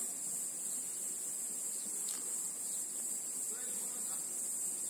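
Steady high-pitched insect chorus, running without a break.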